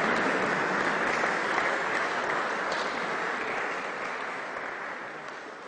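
Audience applauding in a large hall, the clapping steadily fading away.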